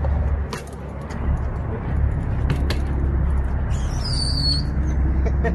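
Wind rumbling on the phone's microphone and BMX tyres rolling on concrete as the filmer rides, with a few sharp clicks. A short high squeak comes about four seconds in.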